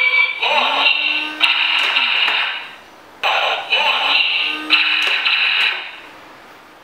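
Electronic robot sound effect with a synthesized, robotic voice from a toy robot's small speaker, played twice in a row and fading out near the end.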